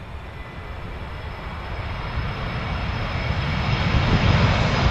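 Jet airliner engines, a low rumble and hiss with a faint high whine, growing steadily louder as the aircraft approaches.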